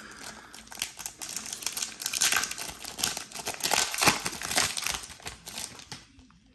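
A black-and-silver protective bag rustling and crinkling in the hands as it is opened and a graded card slab is slid out: a dense run of quick crackles, busiest in the middle, dying away near the end.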